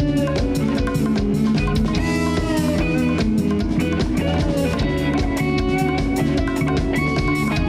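Live instrumental jam-band rock: electric guitars and bass guitar playing over a drum kit keeping a steady beat.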